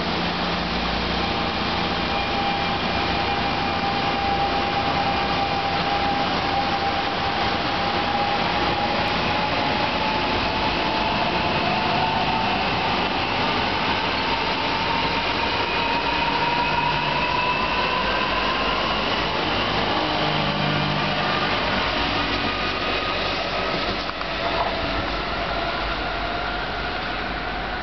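NJ Transit Arrow III electric multiple-unit train departing and accelerating past the platform: steady running noise of the train on the track with the traction motors' whine rising in pitch, easing off a little near the end as the train draws away.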